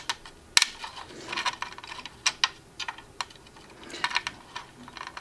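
Scattered light clicks and taps, some in quick little clusters, as a brass standoff is twisted by hand onto a screw sticking up through a circuit board.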